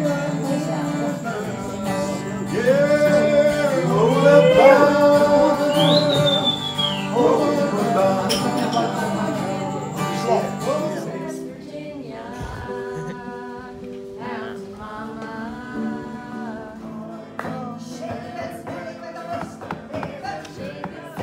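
Live acoustic guitar with a man singing. About eleven seconds in it changes to quieter singing with guitar.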